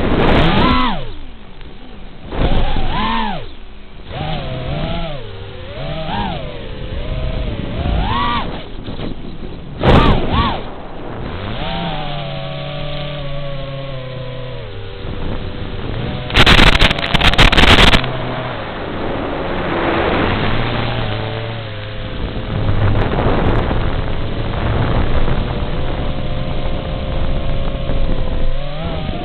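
Furibee X215 Pro quadcopter's brushless motors and propellers whining, the pitch swooping up and down with the throttle for the first dozen seconds and then holding fairly steady. Short loud bursts of noise cut in twice, the louder one lasting about a second and a half past the middle.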